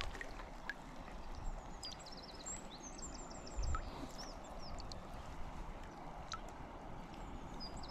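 Steady rush of a small shallow stream, with a songbird singing a quick series of high chirps a couple of seconds in and again near the end. A soft low thump near the middle.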